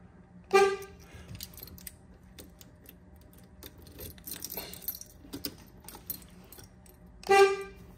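1973 Triumph TR6's electric horn sounding two short beeps, about seven seconds apart, with keys jingling and clicking at the ignition switch between them. It is a test of the horn, now working on the new ground to the steering column.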